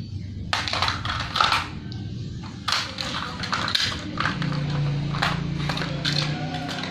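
Plastic toys clattering and knocking on a tiled floor as they are handled, a run of sharp irregular knocks. A steady low hum joins about four seconds in.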